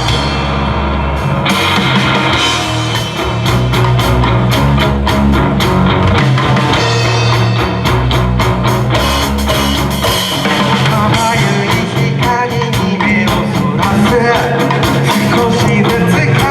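Live rock band playing a song on drum kit, bass and electric guitar. The full band with cymbals comes in about a second in.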